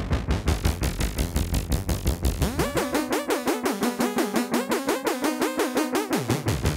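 Modular synthesizer patch running through a matrix mixer: a fast, even pulse of about five beats a second over a bass drone. About two and a half seconds in, the bass drops away and a warbling pitched pattern, sweeping up and down, takes over; the bass comes back near the end.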